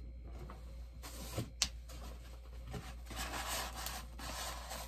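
A packaging box being handled and opened by hand: steady scraping and rubbing, with one sharp click about a second and a half in.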